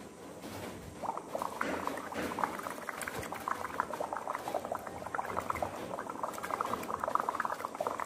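Water bubbling as air is blown out through a drinking straw into a plastic jug half full of water, one long steady exhale that starts about a second in.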